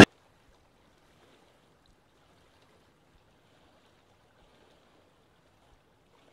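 Near silence: the car's loud driving noise cuts off abruptly at the very start, leaving only a faint hiss.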